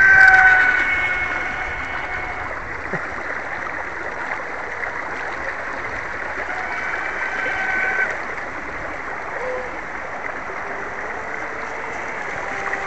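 Home-made carbon RC boat running at speed, its motor giving a high whine over the hiss of the hull and wake on the water. The boat passes twice, loudest just after the start and again about eight seconds in, with the whine dropping slightly in pitch each time.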